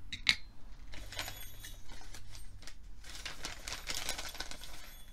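Packaging being rummaged through by hand: crinkling and rustling in two stretches, with a sharp click about a third of a second in.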